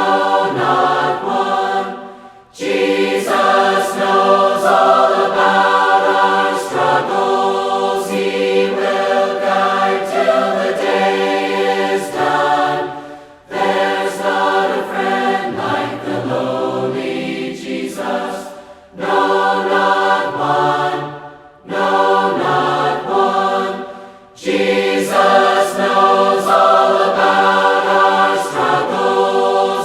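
Congregation singing a hymn in unison and harmony without instruments, in sung phrases of a few seconds with short breaks between.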